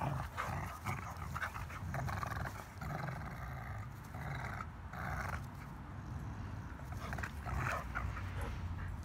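Dogs play-growling while they wrestle and tug on a toy, in a string of short rough growls.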